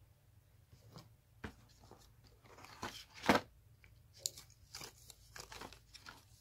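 Perfume sample cards rustling and clicking against each other as a hand picks them up and riffles through them in a cardboard box, with one louder crunch about three seconds in.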